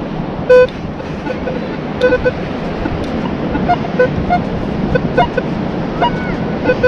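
Beach metal detector giving short beeps again and again as the coil is swept over a buried target, with the tones at a couple of pitches, over a steady hiss of surf and wind.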